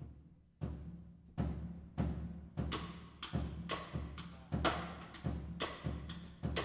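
Yamaha drum kit played with sticks, mostly on the toms, in a build-up: the strikes come closer together and grow louder and brighter, over a low ringing tone.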